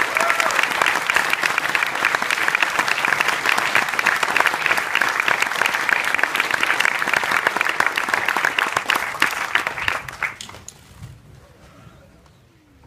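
Cinema audience applauding, a dense steady clatter of many hands that dies away about ten seconds in.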